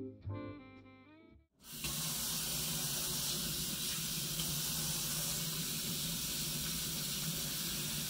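A few fading music notes, a moment of silence, then a faucet starts running, a steady rush of water that carries on unchanged.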